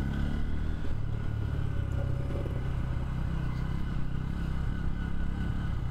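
Motorcycle engine running steadily while it is ridden at low speed, with no clear revving or gear changes.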